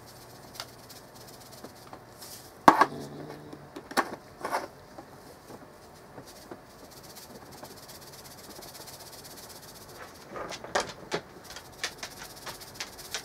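Seasoning shaker bottle being shaken and tapped over a metal measuring spoon. Scattered sharp taps and clicks, the loudest about three seconds in and a cluster near the end, with a faint rattle of seasoning that is slow to come out.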